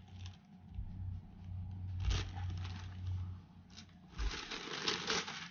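Packaging being handled: soft knocks and a rustle as the box's contents are moved, over a low hum that stops about two thirds of the way in.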